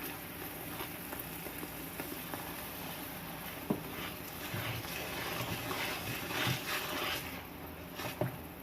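Chocolate syrup of cocoa, sugar and water, thickened with cornflour, simmering in a pan while it is stirred, with a steady low bubbling and a few light clicks of the spoon against the pan.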